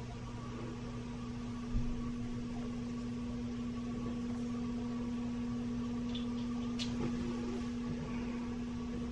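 A steady low electrical hum, with a soft thump about two seconds in and one sharp click about two-thirds of the way through, as a small folding knife is handled and its blade opened.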